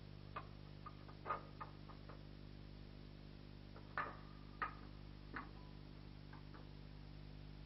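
Faint, irregular clicks over a steady low hum, with a few louder ticks about a second in and again around four to five seconds in.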